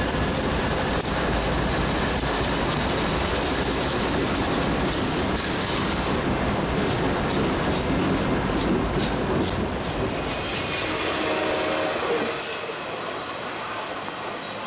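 BNSF freight train passing close by: the trailing GE C44-9W diesel locomotives rumble past first, then autorack cars roll by with steel wheels clattering and squealing on the rails. The sound eases off after about twelve seconds as the train moves away.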